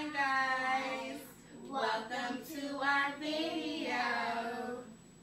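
Young girls and a woman singing together in two phrases of long held notes, the second phrase longer than the first.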